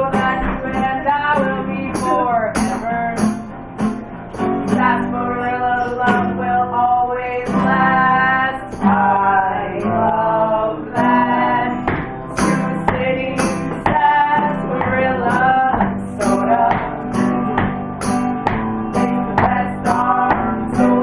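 Live acoustic guitar and singing from a small duo, with regular sharp percussive strikes keeping the beat.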